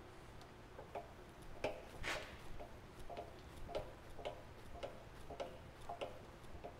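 Light clicking, about two clicks a second with uneven spacing, from a milling machine table being cranked by its handwheel to move the indicator across to the other side of the part.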